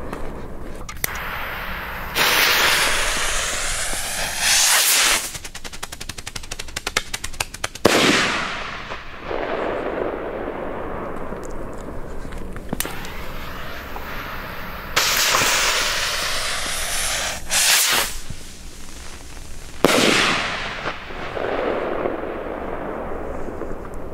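Two ABA Blitz & Donner strobe salute rockets going off one after the other. Each launches with a rushing hiss lasting a couple of seconds. The first then gives a few seconds of rapid strobe crackling. Each ends in a sharp, loud bang that echoes away, the first about eight seconds in and the second near twenty.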